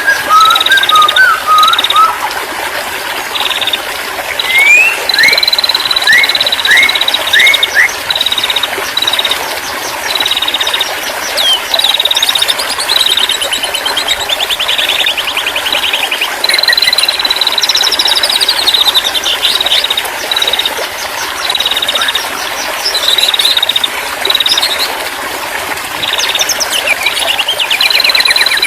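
Several songbirds singing together: long steady high whistles, a run of short rising whistled notes and rapid trills, repeated throughout over a steady background hiss.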